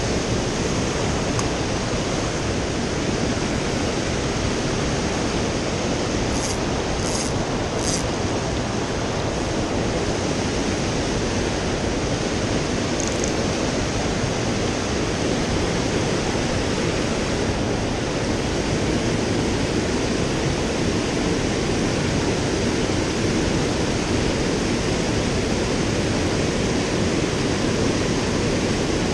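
Fast, shallow stream rushing over rocks and riffles, a steady even rush of water.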